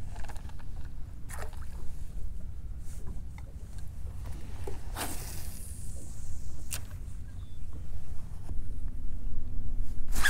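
Wind rumbling on the microphone and water lapping against a boat hull, with a few faint clicks and swishes.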